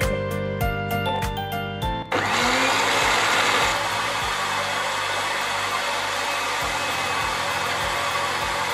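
Electric countertop blender switched on about two seconds in, its motor spinning up and then running steadily as it grinds red chillies and shallots into a wet spice paste. It is a little louder for the first second or so, then settles.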